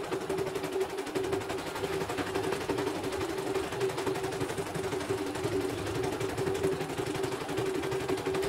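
CNY portable embroidery machine stitching at speed: a rapid, even patter of needle strokes over a steady motor hum. It is a test run after its power supply and motor were replaced.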